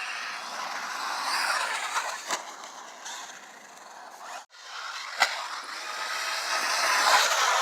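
RC car running on sand and dirt: a motor whine rising and falling with the throttle over the scrape of its tyres, with two sharp knocks about two and five seconds in.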